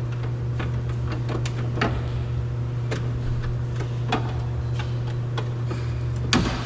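Flathead screwdriver prying at a part inside a car door, making irregular small clicks and scrapes and one louder knock near the end as the part comes loose. A steady low hum runs underneath.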